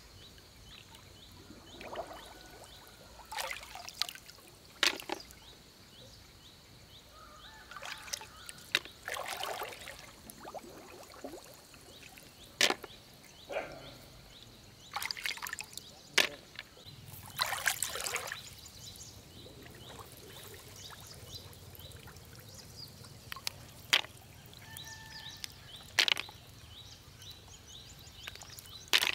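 Hands working in shallow paddy water, with water trickling and dripping off as snails are lifted out, and sharp clicks each time a snail shell drops into a plastic basin of snails, about eight times at irregular intervals.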